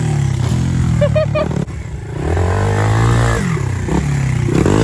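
Honda XR100 dirt bike's single-cylinder four-stroke engine revving up and falling off several times under throttle, with a sharp knock about a second and a half in as the revs drop.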